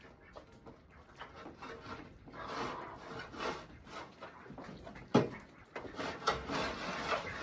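Irregular scraping and rustling of cleaning work, with a sharp knock about five seconds in and a few smaller knocks after it.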